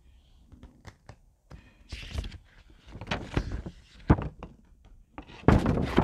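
Paper quick start guide leaflet being handled close up: unfolded and folded back with crisp rustles and crinkles, a sharp knock about four seconds in, and the loudest rustling near the end.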